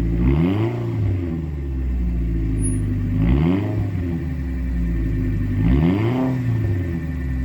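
Fournier Marcadier Barquette FM01's engine idling steadily, blipped three times, each a quick rise in revs that falls straight back to idle.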